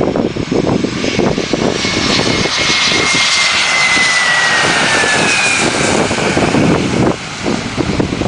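Airbus A321 airliner's jet engines passing on landing approach: a loud rush with a thin whine that slides down in pitch as the aircraft goes by.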